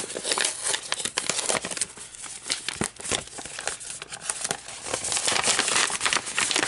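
Paper envelope and plastic-wrapped sticker packs rustling and crinkling as they are handled, in a dense run of irregular crackles.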